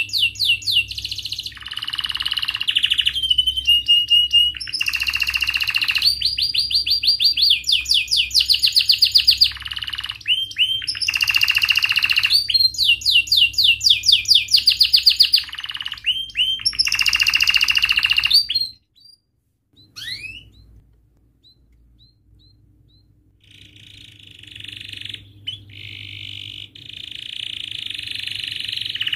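Domestic canary singing in full voice: long runs of fast rolling trills and rapid repeated chirps, each run lasting a second or two. The song breaks off for a few seconds about two-thirds of the way through, then resumes softly and grows louder.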